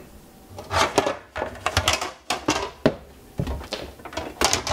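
Rummaging in a low kitchen cabinet: a string of irregular knocks and clatters as things inside are moved about, with some rustling.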